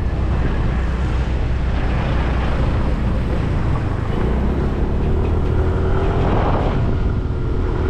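A motorbike under way: its engine running steadily, mixed with wind rushing over the microphone.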